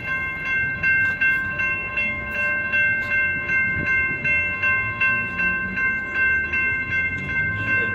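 Railroad grade-crossing warning bell ringing steadily, about two and a half strikes a second, over the low rumble of a slow-moving Union Pacific freight train.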